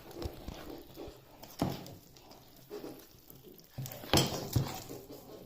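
Bread dough being mixed and kneaded in a bucket: irregular wet slaps, squelches and soft knocks. The louder knocks come about one and a half seconds in and twice around four seconds in.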